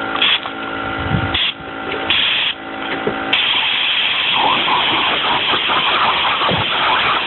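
Compressed air hissing from an air-hose blow gun: three short blasts over a steady hum, then from about three seconds in one continuous blast.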